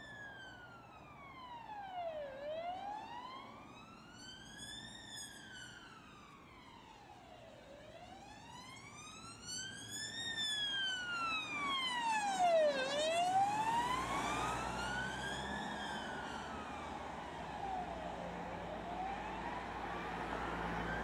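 Vauxhall Astra police car's siren on a slow wail, rising and falling about every five seconds. It grows louder as the car passes about twelve seconds in, and the car's engine and tyres can be heard underneath toward the end.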